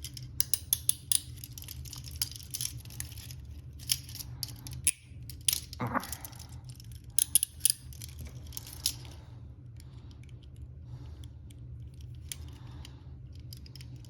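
Steel handcuffs being ratcheted shut and double-locked: a run of sharp metal clicks through the first nine seconds or so, then only a few, over a steady low hum.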